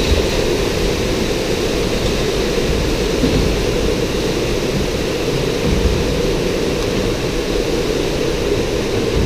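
Log flume ride running: a steady low rushing rumble as the log boat travels along the water channel.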